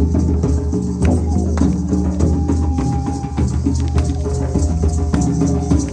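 Live drum-circle music: hand drums and shakers keep up a steady rattle of strokes over held low notes.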